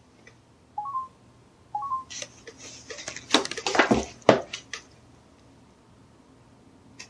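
A camcorder's electronic operation beep, a short rising two-note chirp, sounds twice about a second apart. It is followed by a couple of seconds of sharp clicks and clattering handling noise.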